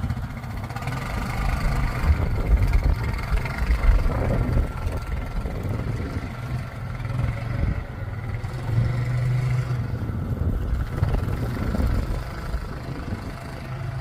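ATV engine running, its note rising and falling as the throttle is worked.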